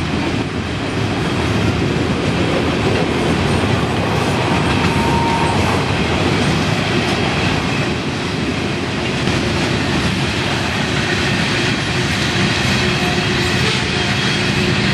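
Freight cars of two trains passing each other at speed, covered hoppers and boxcars of a mixed freight and loaded coal hoppers, their steel wheels clattering steadily over the rails.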